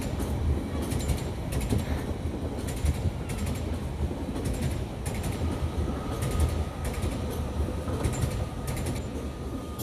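Class 37 diesel locomotive's English Electric engine running with a steady low rumble, with scattered clicks of train wheels on the track. A faint steady whine joins about halfway.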